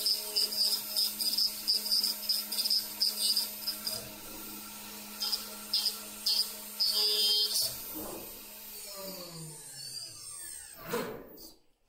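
The 5.5 kW water-cooled ATC spindle of a 4-axis CNC router, milling a bassoon body turning on the rotary axis: a steady whine with on-and-off high cutting noise. About eight seconds in, the spindle winds down, its pitch falling, and a brief burst of noise follows near the end, as the machine heads to the tool magazine for a tool change.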